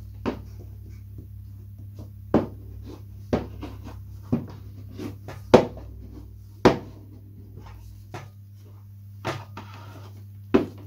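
Covering iron being worked over the fabric covering of a balsa model glider fuselage to shrink it tight: about eight irregular sharp knocks and taps as the iron and model are handled, over a steady low hum.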